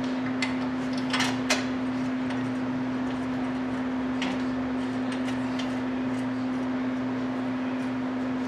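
A steady hum with a few light metallic clicks and taps from hand tools as the new hub assembly's bolts are being threaded in.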